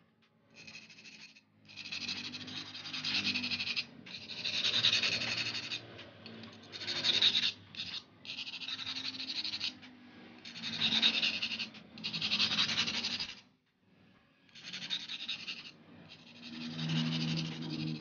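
A cut edge of glass rasped back and forth against a hand-held round abrasive stone disc to smooth it, in about ten gritty strokes of one to two seconds each with short pauses between them.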